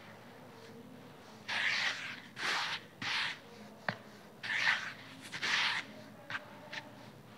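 Fingers sweeping through dry cement powder in a bowl: a series of short swishes, about five strong strokes starting about one and a half seconds in and a couple of lighter ones after, with a single sharp tick near the middle.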